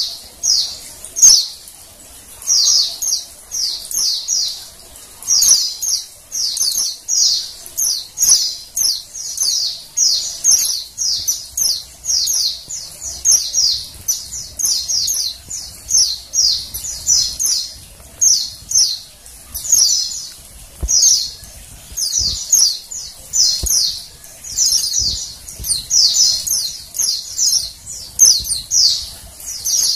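Female white-eye (pleci) calling: short, high, twittering chirps that come in quick clusters about once a second without a break. This is the female's call, used to stir a caged male into singing.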